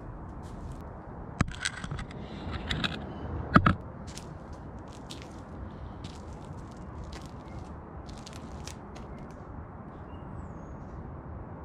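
Scraping and knocking close to the microphone during the first few seconds, with one sharp knock about three and a half seconds in, then a steady outdoor background hiss with faint scattered ticks.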